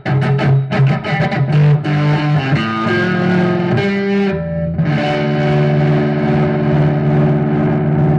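Gibson Les Paul Studio electric guitar playing strummed and picked chords. About four and a half seconds in, a final chord is struck and left to ring, closing the song.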